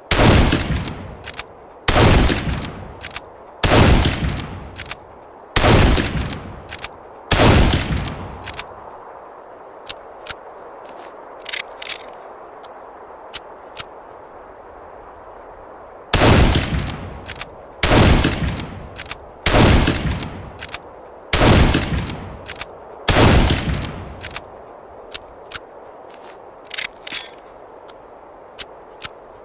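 Mauser Gewehr 98 bolt-action rifle firing five shots about two seconds apart, each followed by light clicks of the bolt. Then several seconds of light metallic clicks, and five more shots in the same rhythm. The groups of five match the rifle's five-round magazine.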